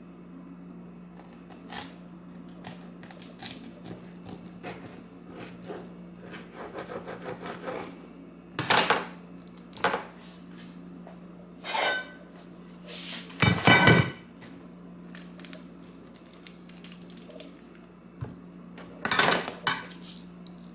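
Kitchen knife cutting a tube of pan sausage on a plastic cutting board, with light taps and clicks, among several louder clatters of a stainless skillet and utensils; the loudest, about 14 seconds in, rings briefly like metal. A steady low hum runs underneath.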